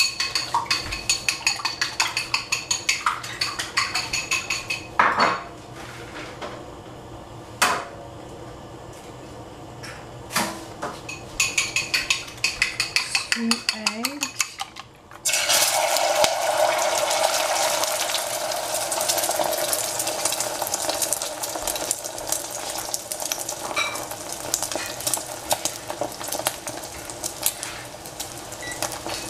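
Egg being beaten in a bowl: a utensil clicks rapidly against the bowl, with a few sharp knocks on the rim. About halfway through, a sudden loud sizzle as the egg hits the hot cooking oil in the pan, and it keeps frying.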